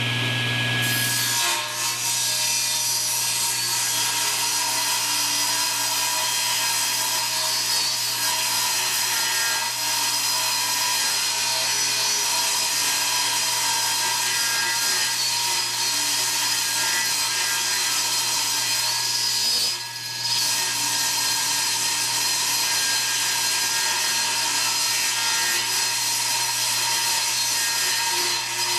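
Old Craftsman table saw cutting plywood, the blade running steadily through the wood over the motor's hum. The cut eases briefly once, about two-thirds of the way in.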